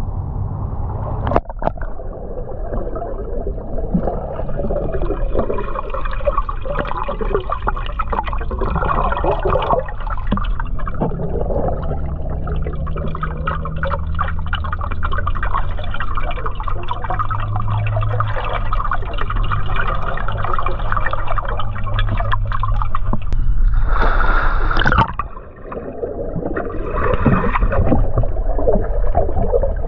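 Water gurgling and churning around a submerged camera, a dense steady wash of bubbling with a faint steady whine over it; it swells loudest about 24 seconds in and drops away briefly just after.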